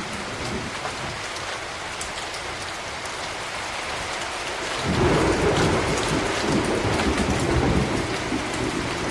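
Steady rain with scattered drop ticks. About five seconds in, a low rumble of thunder comes in suddenly, louder, and rolls on.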